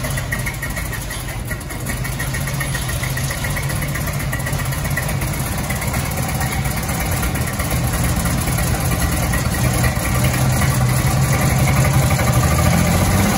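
1951 Hudson Commodore 6's straight-six engine idling steadily just after being started, getting gradually louder.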